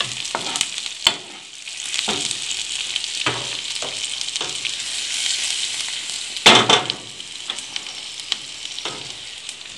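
Sliced onions sizzling steadily in hot oil and butter in a frying pan, sautéing toward translucent. A metal spoon stirs them, scraping and knocking against the pan a few times, most loudly a little past halfway.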